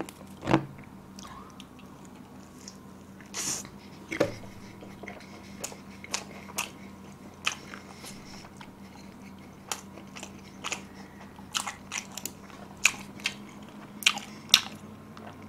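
Close-miked chewing and biting of pizza crust: irregular crisp crunches and wet mouth clicks, the loudest crunch about half a second in, over a faint steady hum.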